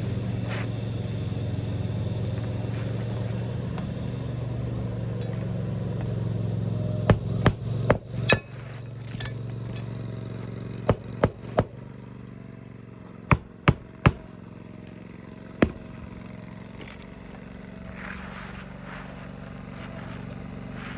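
Hammer driving roofing nails into asphalt shingles, in quick groups of three or four blows with pauses between, ending with a single blow. Under the first half runs a steady low engine-like hum that fades away.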